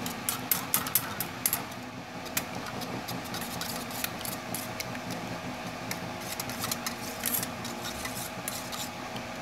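Wire whisk beating egg into milk in a stainless steel bowl: irregular metallic clicks and scraping of the whisk wires against the bowl.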